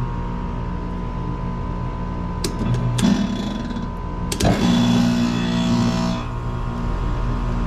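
Steady electrical hum of running HVAC equipment. Sharp clicks about two and a half seconds in, then a louder buzzing hum for about two seconds after another click a little past four seconds, before it settles back to the steady hum.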